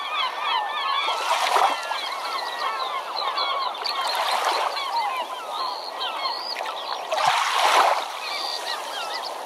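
A flock of birds calling continuously, many short swooping calls overlapping, with three louder rushes of noise about a second and a half, four and a half and seven and a half seconds in.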